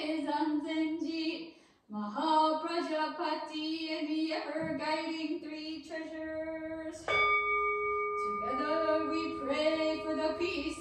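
A woman's voice singing a slow melody in held notes, with a short break about two seconds in. About seven seconds in, a bell is struck once and rings on under the singing.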